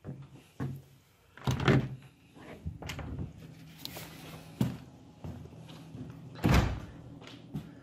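A door being handled: two heavy thuds, about a second and a half in and again near the end, with lighter knocks and clicks between.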